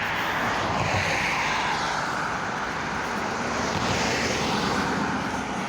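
Road traffic: motor vehicles passing close by, a steady rush that swells about a second in and again about four seconds in.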